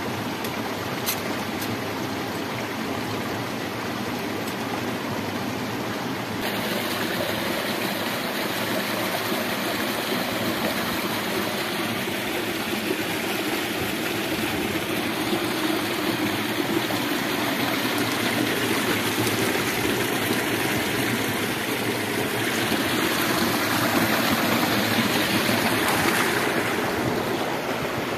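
Small rocky stream flowing, a steady rush of water over stones, swelling a little louder a few seconds before the end.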